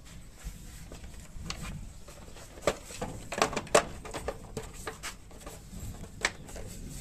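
Scattered light clicks and knocks of a screwdriver and plastic headlight fairing being handled while a screw is driven in. Most of the sharp ticks fall in the middle, with one more near the end.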